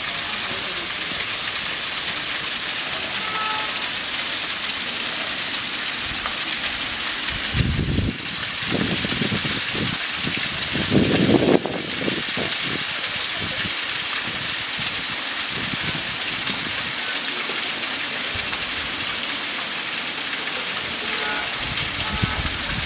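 Waterfall: a steady, dense rush of falling water. Two brief low rumbles break in, about eight and eleven seconds in, the second the loudest moment.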